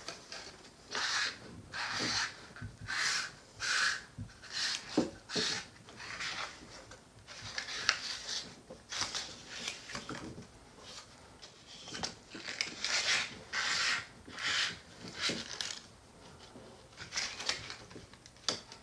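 Electronic stroke controller's metal housing being turned by hand onto the pump's threaded adapter: repeated scraping, rubbing strokes, roughly one a second, with a few light clicks.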